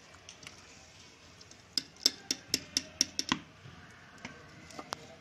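Wire-mesh skimmer clinking against a steel wok as fried besan strands are lifted out of the oil: a quick run of about eight sharp metal clicks, roughly four a second, starting about two seconds in, then two more single clicks.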